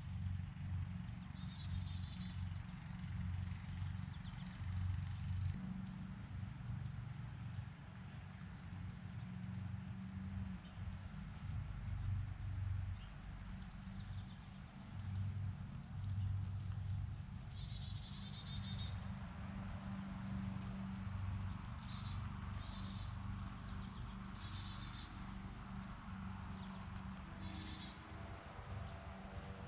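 Small songbirds chirping and calling, many short high chirps with a few brief trills, over a steady low rumble.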